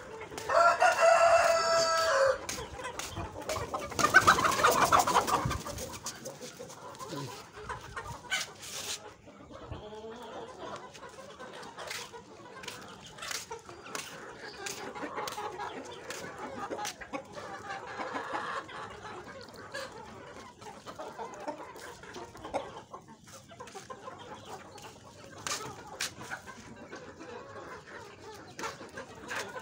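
A flock of desi chickens clucking. A rooster crows loudly about half a second in, and a second loud call follows a few seconds later. After that come quieter clucks and scattered short clicks.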